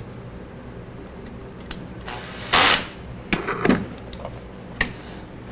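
Metal scroll-saw arm castings being handled and fitted together by hand: a few light clicks and knocks, and a short scraping rub about two seconds in.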